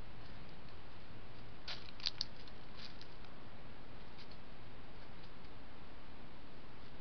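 Steady hiss of a trail camera's microphone, with a few faint sharp clicks and rustles about two to three seconds in and once more near four seconds, fitting a fox stepping and nosing through dry leaf litter and twigs.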